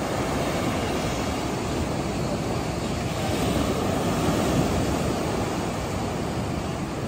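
Ocean surf breaking and washing up a sandy beach: a steady rush of waves that swells louder about halfway through as a wave breaks close to shore.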